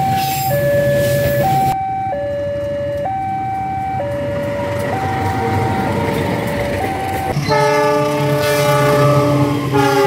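Level-crossing warning alarm sounding a two-tone signal, high then low, about one tone a second, over the rumble of a passing train. About seven and a half seconds in, a train horn sounds a long multi-note chord for about two seconds, and it starts again at the very end.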